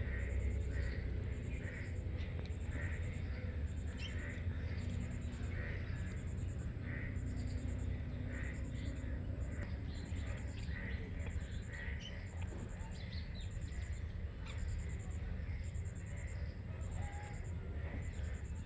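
Alexandrine parakeet chirping in short calls repeated about twice a second. A steady low rumble and a high, pulsing trill run underneath.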